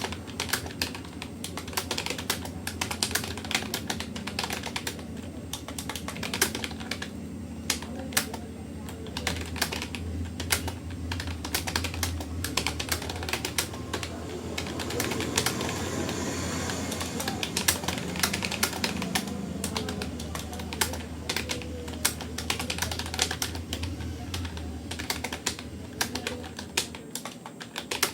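Fast, steady touch-typing on a Rapoo computer keyboard: a continuous, irregular clatter of keystrokes, with a low steady hum underneath.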